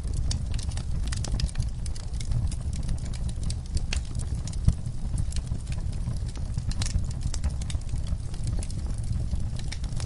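Wood fire crackling in a fireplace: irregular sharp pops and snaps from the burning logs over a steady low rumble of the flames, with one louder pop about halfway through.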